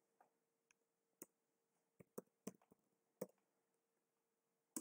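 Faint computer keyboard keystrokes, about six scattered taps as a word is typed, over a faint steady hum.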